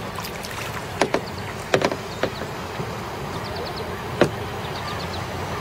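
Kayak being paddled: a steady wash of water and air noise, with sharp knocks and clicks of the double-bladed paddle against the plastic kayak, several in the first two and a half seconds and one more after about four seconds.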